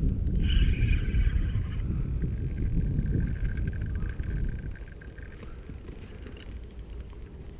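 Wind buffeting an outdoor action-camera microphone, a gusty low rumble that eases off about five seconds in, with a faint high whirring over the first few seconds.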